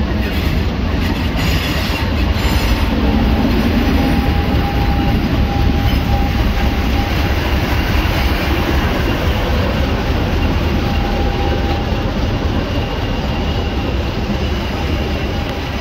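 Diesel-hauled passenger train moving out along the platform: coaches rolling past, then the Class 50 diesel locomotive 50008 on the rear going by with a steady deep engine rumble. A thin squeal from the wheels comes and goes.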